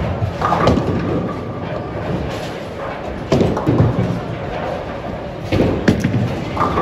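Bowling alley din: balls rolling on the wooden lanes with a low rumble, broken by a few sharp knocks and thuds of balls landing and pins being struck.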